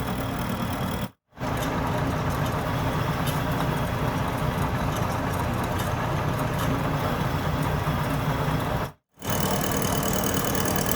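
Metal lathe running steadily with a constant low hum. The sound cuts out abruptly twice for a split second, about a second in and again near the end.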